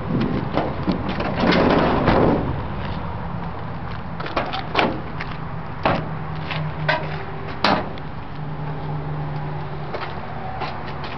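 Doors of a 2005 Chevrolet Astro cargo van being worked: a rougher stretch of handling noise about two seconds in, then a series of sharp latch and handle clicks as the rear cargo doors are unlatched and swung open.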